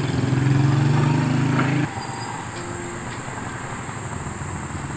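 A motor vehicle engine running with a steady low hum, cut off abruptly about two seconds in and replaced by quieter, even street noise.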